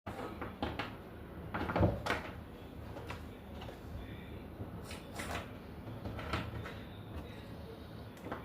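A series of irregular knocks, clicks and rubs, like things being handled, over a low hum; the loudest knock comes about two seconds in.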